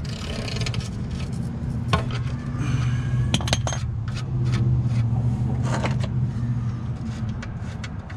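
Scattered metal clicks and clinks as a socket wrench works an engine oil drain plug loose, then fingers turn the plug out, over a steady low hum.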